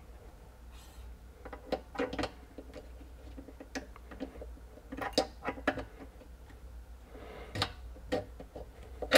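Metal bolt of a Marlin 1895 lever-action rifle being slid back into its receiver: irregular metal clicks and short scrapes every second or so as it is worked into place.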